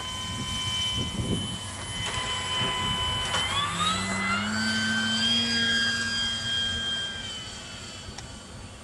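Electric motor and propeller of a radio-controlled gyrocopter whining steadily, then rising in pitch about three seconds in as the throttle opens for the takeoff run. It holds the higher whine, then fades near the end.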